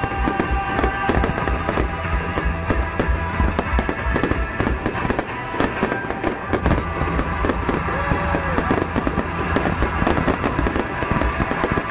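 Fireworks display: a continuous barrage of bangs, pops and crackles from bursting shells, many reports overlapping, with music playing underneath.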